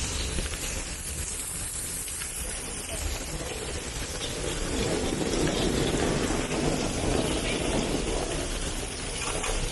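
Heavy rain falling, a steady hiss of rain on surfaces, with faint indistinct voices underneath.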